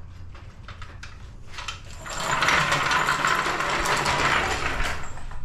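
Steel ATV lift jack being pulled across a concrete floor, metal rattling and scraping. A few light clicks come first, and the rattle grows loud about two seconds in and runs for about three seconds.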